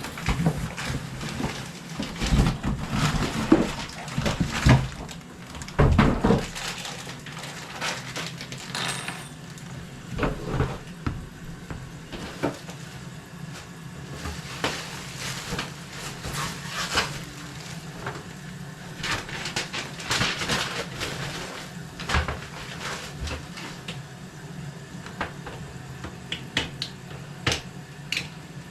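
Handling noises from work on a toilet installation: irregular knocks, clanks and scrapes of tools and parts, busiest in the first few seconds, then scattered sharp clicks.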